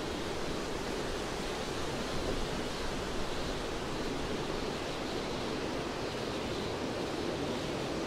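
Wind blowing steadily through the crowns of pine trees, an even rushing noise with no distinct gusts or breaks.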